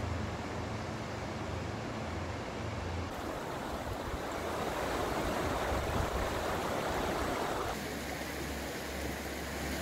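Shallow river water rushing over stones, a steady flowing noise that gets louder about three seconds in and drops back abruptly near the end.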